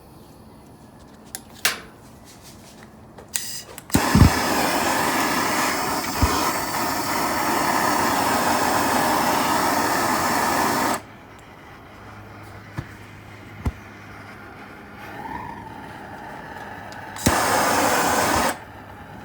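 Propane forge being lit for the first time: a few clicks, then a low thump as the gas catches about four seconds in and a loud rushing hiss of the burners for about seven seconds. It cuts back, and a second short burst of gas hiss comes near the end.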